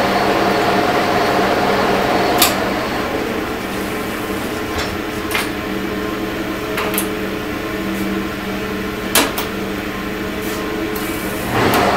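1943 Sidney engine lathe running with a steady mechanical hum, broken by several sharp clicks as its controls are worked. One higher tone in the hum drops out after the first click, about two and a half seconds in.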